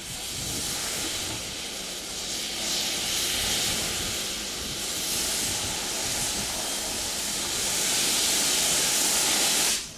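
Narrow-gauge steam locomotive letting off steam: a loud, steady hiss that grows louder toward the end, then cuts off suddenly.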